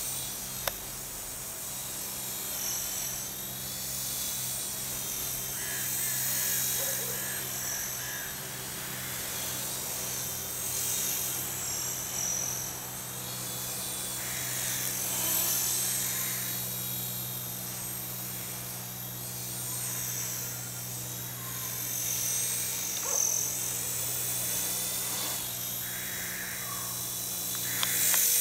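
Home-made sub-micro collective-pitch RC helicopter in flight, its small electric motor and rotor giving a continuous high whine that rises and falls in pitch as the throttle and pitch change.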